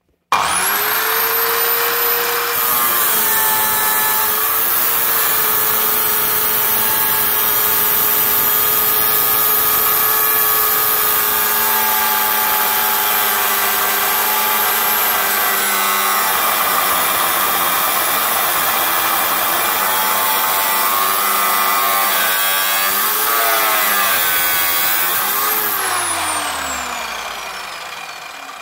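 Parkside PMTS 180 A1 metal cut-off saw's motor spinning up and its 180 mm abrasive disc cutting through a rusty steel angle bar, a steady high whine whose pitch dips now and then as the disc bites. Near the end the motor is switched off and winds down with a falling whine.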